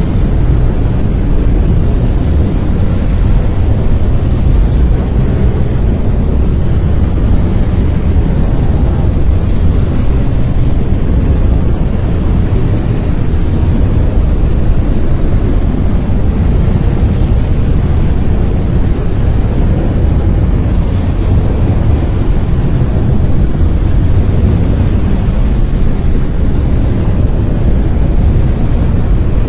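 Brown noise: a steady, deep rumbling hiss, loud, strongest in the bass and thinning toward the highs, with no change or events.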